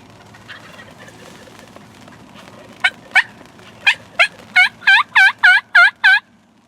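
Turkey yelping: a run of about eleven loud, evenly spaced yelps, roughly three a second, starting nearly three seconds in, growing longer and stronger toward the end, then stopping.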